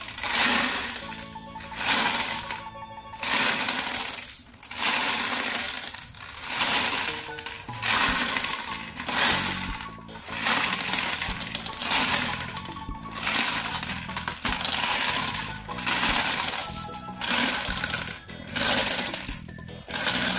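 Glass marbles tumbling out of a plastic toy cement mixer's drum and down its chute, clattering and clinking onto a pile of marbles in repeated bursts about a second apart, over background music.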